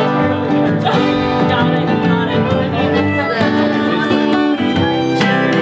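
An acoustic guitar and a violin playing a tune together: the guitar picked and strummed, the violin bowed.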